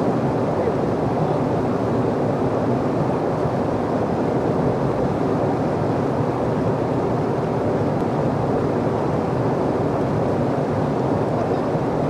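Loud, steady rushing of a river rapid's whitewater, the churning standing wave that kayakers surf.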